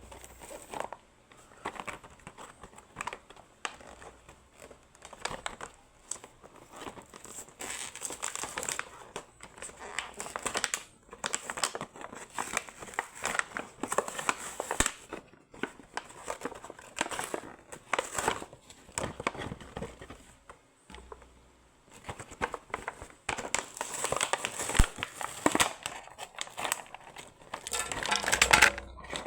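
Plastic packaging crinkling and crackling in irregular bursts as a boxed toy model set is unwrapped and handled, with a short pause about two-thirds of the way through.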